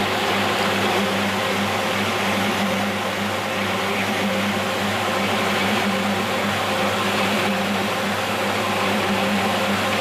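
SC43D double-brush carpet washing machine running steadily: a motor hum with a broad rushing noise over it.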